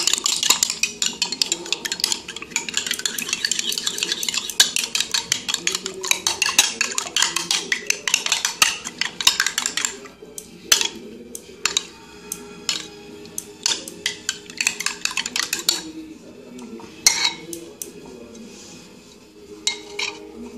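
A metal spoon beating raw eggs in a bowl, clinking and scraping against the bowl's sides. The strokes are fast and continuous for about the first ten seconds, then slow to scattered taps.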